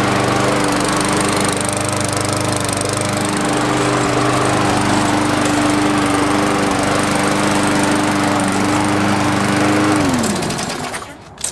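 MTD Pro gas lawn mower engine running steadily, then shut off about ten seconds in, its pitch falling as it winds down to a stop.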